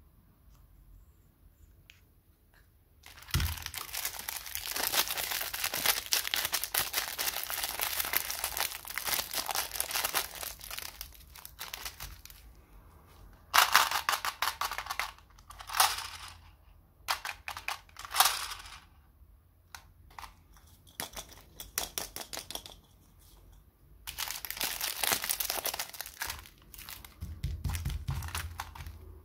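Hands crinkling and handling plastic candy wrappers and packaging. A long stretch of dense crackling starts about three seconds in, a run of sharper separate crinkles comes around the middle, and another dense stretch comes near the end.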